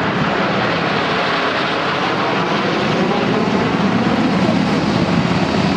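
Lockheed C-130H Hercules transports flying past in formation, their Allison T56 turboprop engines making a steady, loud drone.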